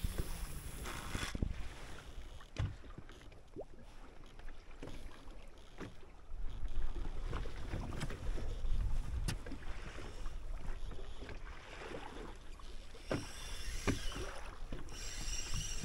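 Choppy water slapping against a bass boat's hull, with scattered small knocks. Near the end comes a fine, quick ticking from the spinning reel being wound.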